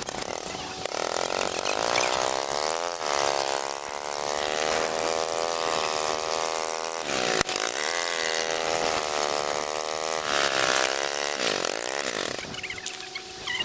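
Golf cart's drive motor running as the cart moves, a steady whine whose pitch sags and climbs again several times as the cart slows and speeds up, over the rumble and rush of wheels and air.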